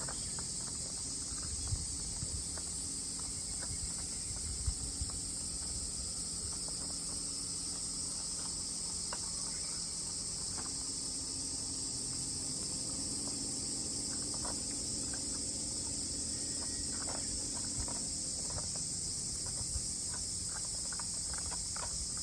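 A steady, high-pitched chorus of insects shrilling without a break, with low rumbling and a few faint scattered clicks and taps.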